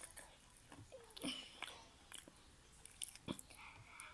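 Faint chewing and mouth sounds of a person eating, with scattered short clicks and smacks.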